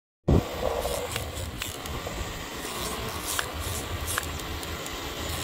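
Motor scooter ridden slowly toward the microphone, its engine a low, uneven rumble with a few light clicks. The sound opens with a short thump.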